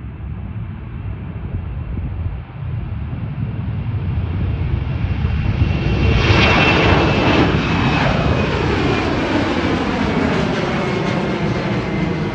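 Embraer E190's GE CF34 turbofan engines spooling up to takeoff thrust: a jet roar that rises steadily in loudness and pitch and grows loud about six seconds in, then holds at full power.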